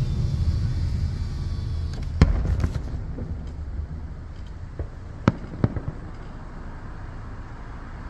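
Fireworks going off: one loud bang about two seconds in, then a few sharper, quieter pops around five seconds in, over a low rumble that fades during the first few seconds.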